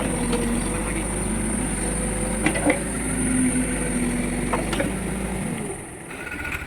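Case backhoe loader's diesel engine running under working load, with a few sharp metallic clanks. The engine sound eases off briefly near the end.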